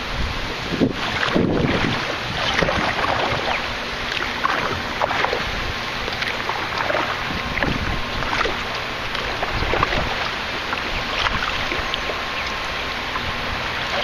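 River water rushing and splashing around a canoe running a class I shoal rapid, with many short splashes throughout and low wind rumble on the microphone.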